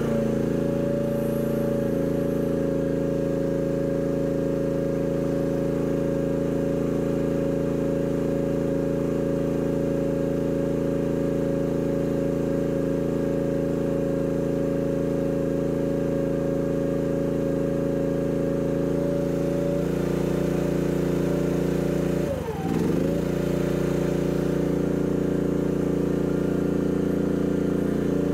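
Chinese mini excavator's small engine running steadily while driving a hydraulic auger. Its note shifts slightly about 20 seconds in, then sags briefly and recovers about 22 seconds in.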